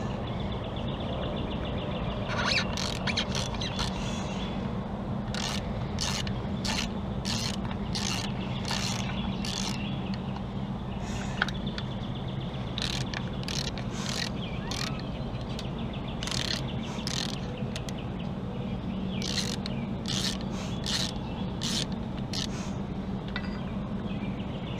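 Hand socket ratchet clicking in several runs of quick clicks as it backs out the valve cover bolts on a Chevy 3.1L V6, over a steady low hum.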